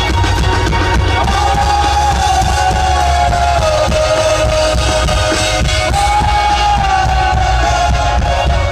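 Live rock band playing loudly through a concert PA, heard from within the crowd: electric guitar, sung vocals and heavy bass, with a held melody line that steps down and then rises again.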